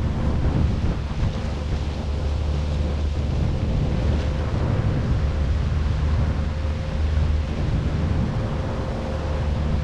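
Twin Honda 150 four-stroke outboard motors running steadily with the boat under way, a low hum with a thin steady whine, mixed with the churn of the wake and wind buffeting the microphone.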